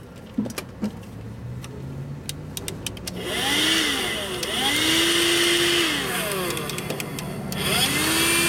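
Audew 12V handheld car vacuum cleaner switching on about three seconds in after a low hum and a few clicks, then running loudly with a whine whose pitch sweeps up and down, easing off briefly and picking up again near the end.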